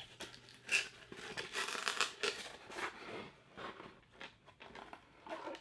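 Packaging being handled: irregular rustling, crinkling and scraping of cardboard and wrapping as a boxed Funko Pop figure is pulled out and turned over.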